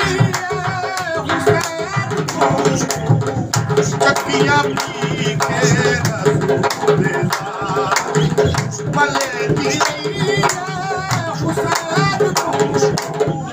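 A man singing a Punjabi qasida in long, wavering, ornamented lines, accompanied by a steady pattern of dhol drum beats and rhythmic hand clapping.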